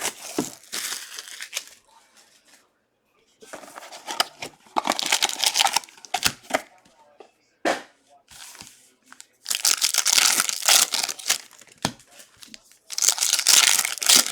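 Plastic wrapping and pack wrappers of a box of trading cards being torn open and crinkled, in several stretches of rustling with short pauses between them.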